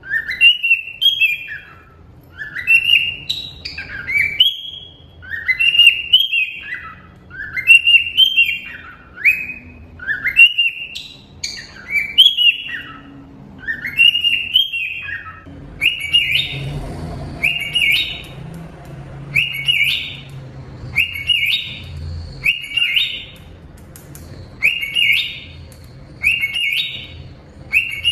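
Cockatiel calling: repeated whistled chirps that rise and fall, about one a second, changing about halfway through to a series of shorter rising calls at a similar pace.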